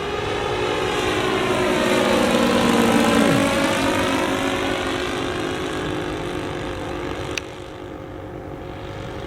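Radio-controlled model Cessna 337 Skymaster flying past, its propeller note swelling to loudest about three seconds in and dropping in pitch as it goes by. A sharp click comes about seven seconds in, after which it is quieter.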